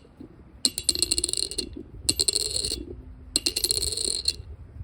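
A penny dropped onto a hard surface three times, each time ringing with a clear, high ping amid quick rattling clicks as it bounces and settles. A sound test for a possible brass penny, which rings where copper sounds duller.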